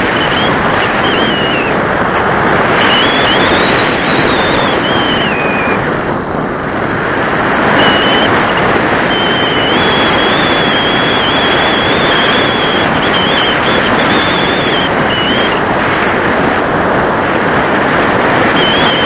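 Steady rush of airflow over the onboard camera's microphone as the RC glider soars, with a thin high whistle on top that wavers up and down in pitch and drops out now and then.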